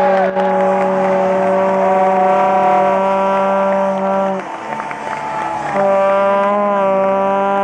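Hockey arena goal horn sounding two long, steady blasts, the second starting about a second and a half after the first stops, with the crowd cheering over it: the signal of a home-team goal.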